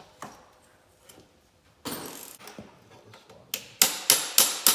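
Hammer striking metal to work a stuck part free: a few scattered knocks, then a quick run of sharp, ringing strikes, about four a second, from about three and a half seconds in.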